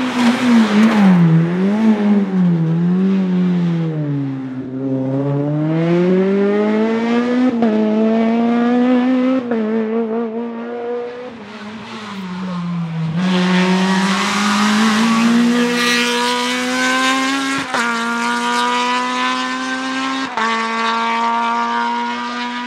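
Naturally aspirated Honda K20 VTEC four-cylinder of a racing Civic Type-R EP3 at high revs. The pitch wavers up and down on the throttle as the car passes, then climbs in quick rising sweeps, each cut off by a sharp drop at an upshift. In the second half it runs loud again, climbing through the gears with two sharp upshifts near the end.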